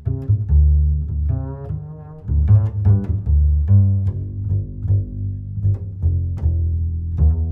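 Instrumental background music: a deep bass line under a string of short, separate pitched notes that ring and fade.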